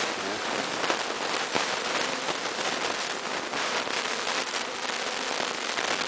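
A honeybee swarm crawling and buzzing in a mass on a sheet as it walks into a hive: a dense, steady crackling hiss full of tiny clicks.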